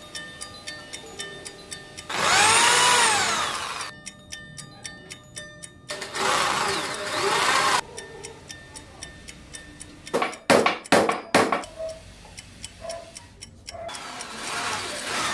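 Electric drill boring into wood in two bursts of about two seconds each, its motor whine rising then falling. Then comes a quick run of about six sharp knocks and a shorter, fainter drilling near the end, all over background music with a ticking beat.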